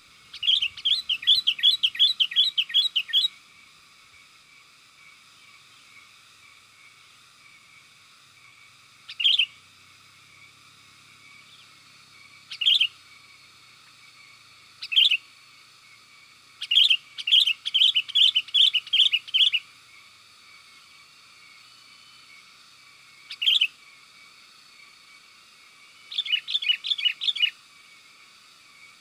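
Sooty-headed bulbul (kutilang) calling: quick runs of bright chirps, about four a second, at the start, in the middle and near the end, with single chirps between the runs. A faint steady hiss lies underneath.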